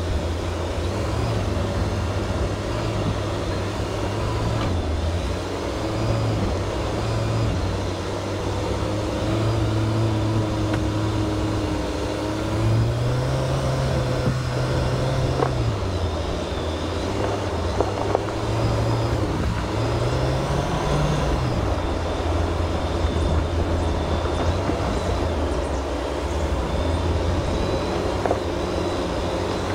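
Jeep Wrangler JL engine running while driving, its note stepping up and down with the throttle and rising higher for a couple of seconds around the middle.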